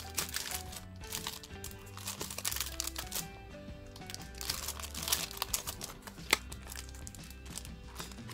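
Plastic-sleeved art-kit sheets crinkling and crackling as they are handled and flipped, with a sharper crackle about six seconds in, over background music with held notes and a steady bass.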